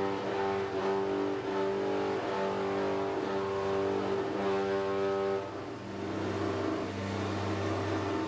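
Automated pallet-handling gantry in a concrete pipe plant running as it positions bell-forming pallets, a steady pitched mechanical drone. The higher part of the drone drops away about five seconds in, while a lower hum carries on.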